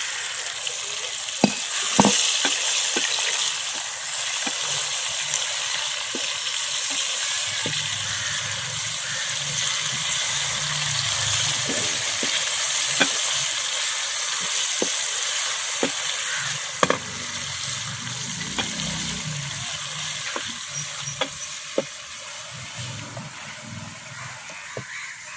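Potatoes sizzling as they fry in hot ghee with onion and tomato masala, stirred in the pot with a spoon that clicks and scrapes against the pan now and then.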